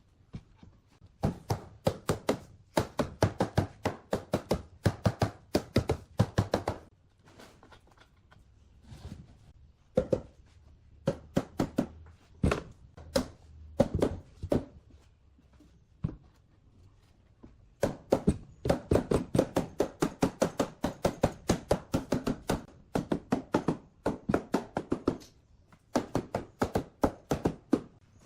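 Rapid series of sharp knocks on wood, about four to five blows a second, in long runs with a few slower, scattered blows in between: hammer or mallet blows in woodworking work.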